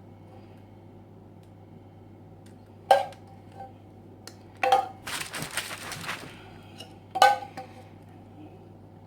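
A metal spoon clinking sharply against a pan three times, with about a second of scraping in between, as the hot candy mixture is spooned out in half-tablespoon portions. A faint steady low hum runs underneath.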